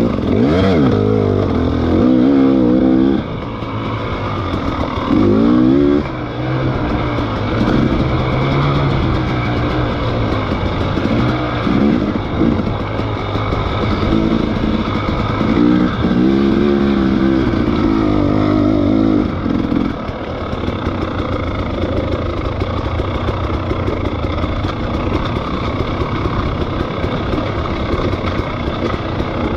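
Dirt bike engine running under way, revving up and dropping back several times, then holding steadier and a little quieter for the last third.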